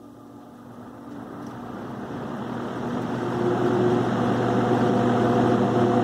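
Vintage McGraw Edison New Home 20-inch box fan coming up to speed with its blades on: a motor hum and the rush of air grow louder over the first three seconds or so, then hold steady. The motor's worn bearing can be heard running out.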